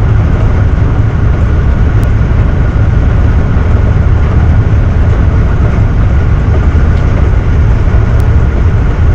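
Tugboat's diesel engines working under power, a loud steady low rumble with a faint steady whine above it, as the propellers throw wash astern.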